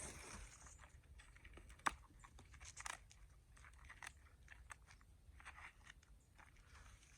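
Faint scattered crunches and clicks of garden soil being dug through by hand to unearth sweet potatoes, with a sharper click about two seconds in.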